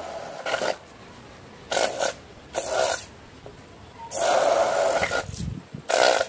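Small hand-held DC motor with a drill bit on its shaft, run in short bursts as it bores holes through MDF board: five whining buzzes of half a second to a second each, the longest about four seconds in.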